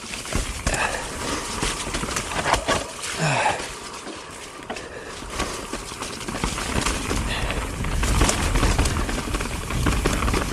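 Transition Spire alloy mountain bike riding fast down a rough trail: tyres rolling over dirt, roots and snow with rattles and knocks from the bike, growing louder and rougher in the second half.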